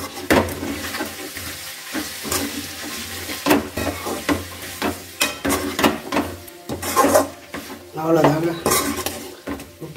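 Slotted metal spatula scraping and clinking against an aluminium kadai in irregular strokes as chicken pieces are stir-fried, with the pan sizzling underneath.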